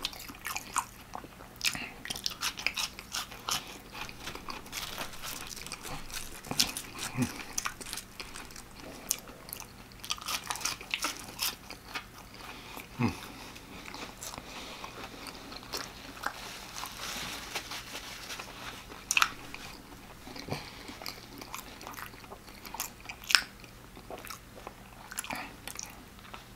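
Close-miked chewing of extra-crispy fried chicken and fries, with many small sharp crunches of the breading throughout.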